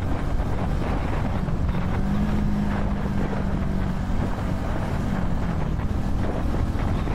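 Wind buffeting the microphone on a Vitacci XMT 250 motorcycle riding at about 40 mph, with the bike's engine droning steadily underneath. The engine note dips slightly about five seconds in as the bike slows.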